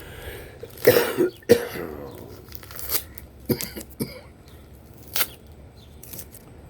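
A man coughing twice about a second in, followed by a few light clicks.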